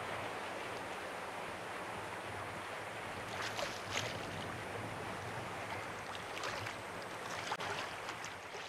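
Shallow seawater sloshing and splashing around a wading angler's legs over a steady hiss of water and wind, with a few sharper splashes about three and a half seconds in and again near the end.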